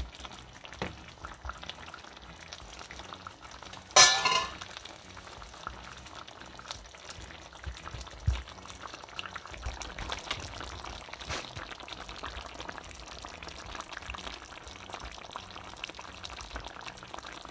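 Fish, vegetables and coconut-milk sauce simmering in a frying pan: steady faint bubbling and sizzling with small crackles. A short sharp clatter about four seconds in.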